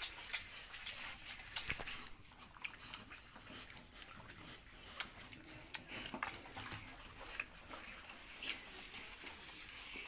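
A pig drinking from a metal nipple drinker: faint, irregular clicking and slurping as its mouth works the nipple, with water spattering, and a few louder clicks among them.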